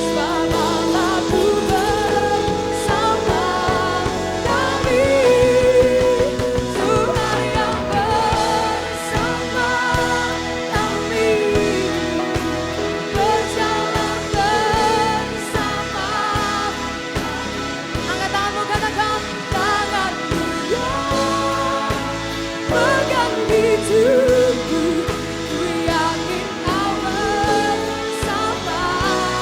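A live worship band playing a pop worship song, with a steady drum beat under a wavering lead melody line.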